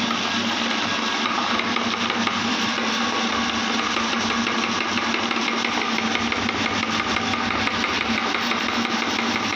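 Electric meat grinder motor running steadily under load as it forces mashed banana through the grinding plate: an even hum with a fast, continuous rattle.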